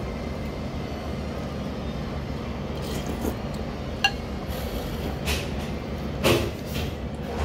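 A ceramic soup spoon and chopsticks clink against a ceramic ramen bowl, with one sharp ringing clink about four seconds in and a few shorter sounds after it. A steady low hum of the shop runs underneath.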